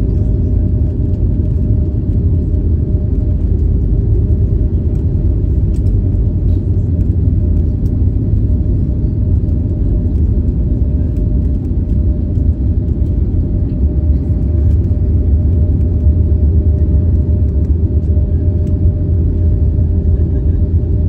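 Cabin noise of an Airbus A320-family jet rolling along the runway after landing with its ground spoilers up: a loud, steady low rumble of the engines and wheels, with a steady hum above it.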